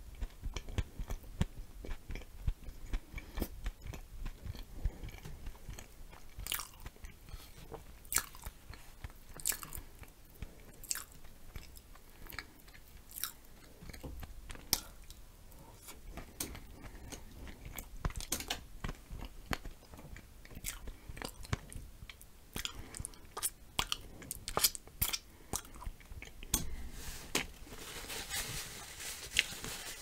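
Close-miked eating sounds of a person chewing glazed donut with whipped cream and blueberries: irregular wet smacks and sharp mouth clicks throughout. A denser stretch of hissing noise comes near the end.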